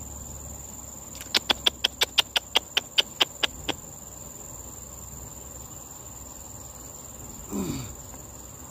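Steady high-pitched insect trill, with a run of about fourteen sharp clicks, some six a second, starting about a second in, and a short low falling sound near the end.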